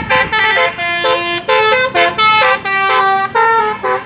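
Indonesian bus 'telolet' horn, a set of multi-tone air horns, playing a quick tune of short notes that step up and down in pitch, several notes a second with brief gaps between them.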